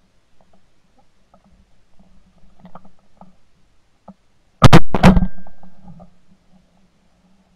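Two shotgun shots in quick succession, about half a second apart, from a 12-gauge semi-automatic shotgun. The blasts trail off over about a second.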